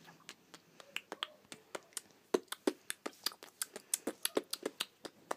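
Quick, irregular small clicks and taps close to the microphone, sparse at first and coming several a second from about two seconds in.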